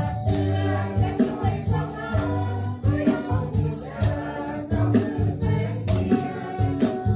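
Live worship band playing a praise song: drums keeping a steady beat under bass and keyboard, with several voices singing together.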